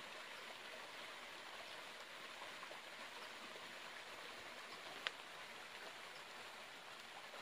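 Faint, steady rush of running water, with one short sharp click about five seconds in.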